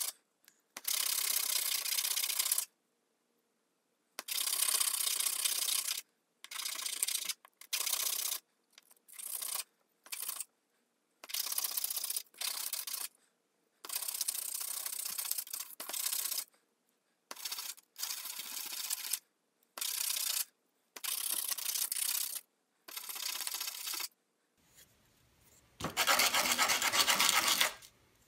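Coarse 60-grit sandpaper rasping against a purpleheart wood fidget spinner, hand-sanded in irregular back-and-forth strokes with short pauses between them, rounding off its sharp edges. Near the end comes a longer, louder stretch of rubbing.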